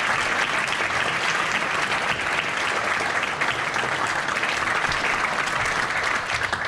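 An audience applauding steadily, many people clapping at once, dying away just after the end.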